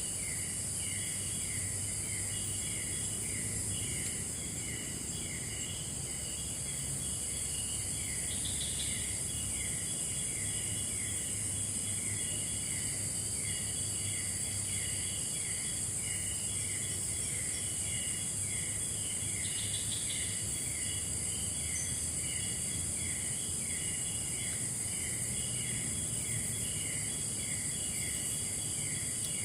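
Tropical rainforest insect chorus: a steady high-pitched buzz of insects, with a regular chirp repeating about two to three times a second. A brief higher trill breaks in a couple of times.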